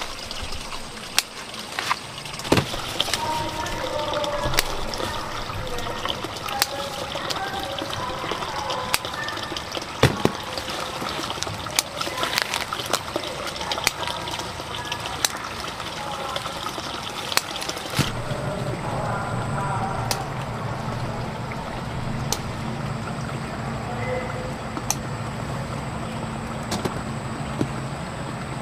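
Running or splashing water with scattered sharp knocks. A low steady hum joins about eighteen seconds in.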